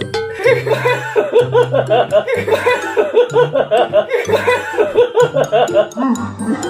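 Hearty human laughter in a long run of quick repeated bursts, about four a second, that tails off near the end. Background music with a steady low bass line runs underneath.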